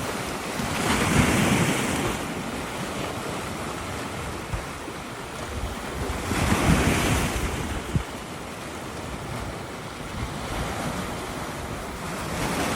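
Sea surf: waves breaking on the shore three times, about five to six seconds apart, with the hiss of washing water between them.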